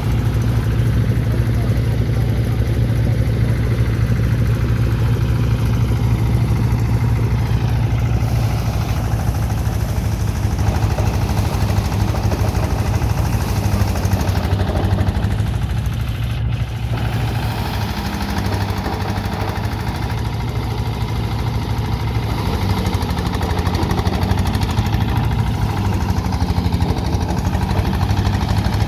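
Engine-driven paddy thresher running steadily, its small engine chugging under load as the drum threshes rice straw. Briefly a little quieter a little past the halfway point.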